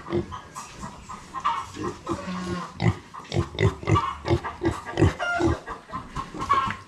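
Brown Duroc pigs grunting in a quick run of short grunts, several a second, as a piglet and a larger pig touch noses through a pen gate.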